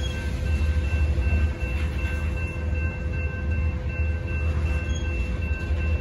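Freight train of covered hopper cars rolling past at a grade crossing, a steady low rumble of wheels on rail. Over it runs the crossing signal's bell, heard as a few steady ringing tones.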